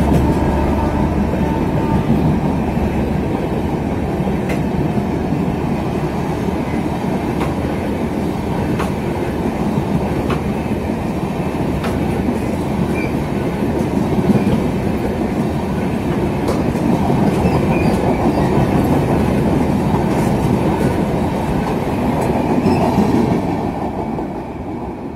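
Express passenger train of AC chair car coaches running through a station at speed. The wheels and coaches rumble steadily, with scattered clicks as the wheels cross rail joints, and the sound fades as the last coach passes near the end.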